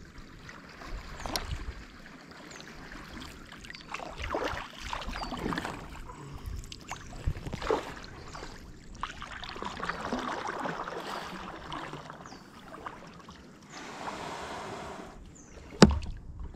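Kayak paddle strokes dipping and splashing in calm water at an uneven pace, with water dripping and swishing between strokes. Near the end the hull scrapes briefly as it runs up onto the sandy beach, followed by one sharp knock.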